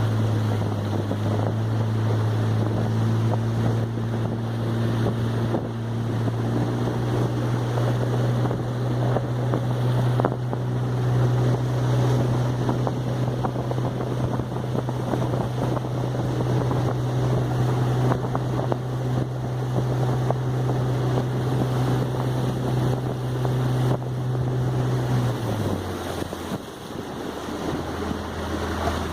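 Boat engine running at a steady speed, with wind buffeting the microphone and water rushing by; about 25 seconds in the engine drops to a lower pitch as it is throttled back.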